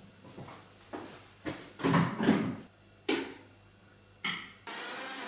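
Knocks and clatter of a plastic blender jar being carried and set onto its motor base, the loudest about two seconds in. Near the end the blender motor starts abruptly and runs steadily.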